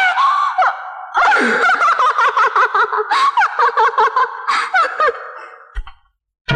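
A woman's giggling laughter in quick pitched bursts that trails off and fades away. Near the end the film song's music cuts back in.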